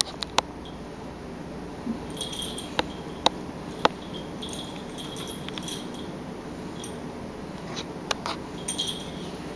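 A cat batting at a string toy: light jingling rattles with scattered sharp clicks, a few at a time.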